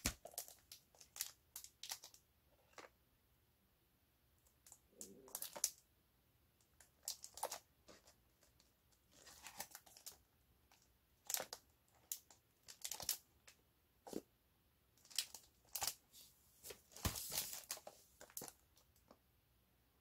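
Clear plastic shrink wrap on a sealed box of 5.25-inch floppy disks crinkling as the box is handled, in short irregular bursts, with a few sharp clicks of the box being set down or gripped.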